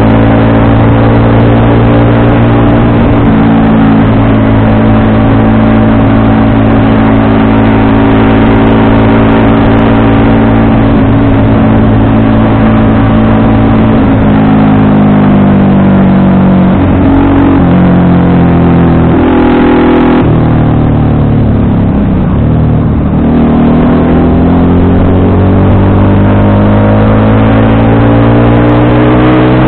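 FKM Victorino 250i's V-twin engine running loud and steady under way, its pitch dropping in a couple of steps about two-thirds through as it slows, then climbing steadily again as it picks up speed.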